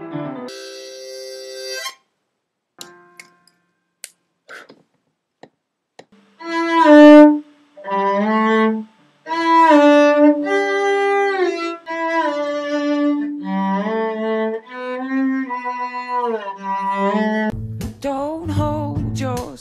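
Cello bowed in a slow line of long held notes, some sliding between pitches, after a few seconds of scattered faint clicks. Near the end a second layer with low, evenly repeating pulses comes in under it.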